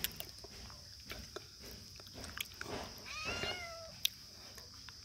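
A kitten meows once, a short call with a falling pitch about three seconds in. Small scattered clicks come as it nibbles at a slice of cucumber held out to it.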